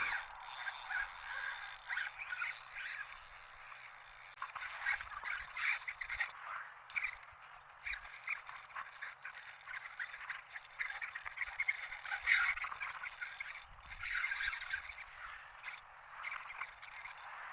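Animal calls outdoors: many short, harsh, choppy calls repeated over and over with no let-up.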